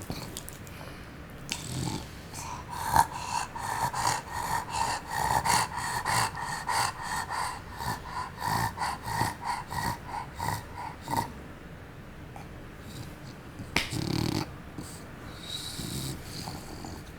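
Bulldog breathing noisily: a run of quick, rhythmic breaths, about two a second, for about eight seconds. A single short, louder sound follows a few seconds later.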